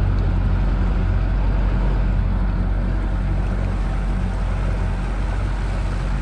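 A motorboat's engine running steadily with a constant low hum, mixed with wind and water rushing past the hull.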